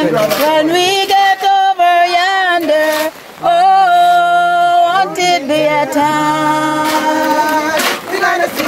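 A group of voices singing a gospel hymn, with women's voices leading on long held notes that waver with vibrato.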